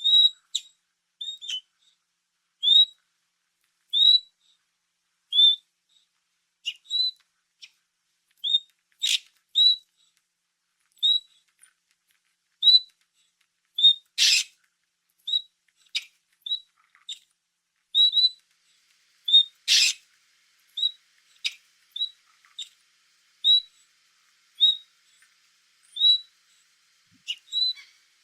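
Otter chirping: a series of short, high-pitched chirps, roughly one a second, some in quick pairs, with a few louder, harsher bursts in between.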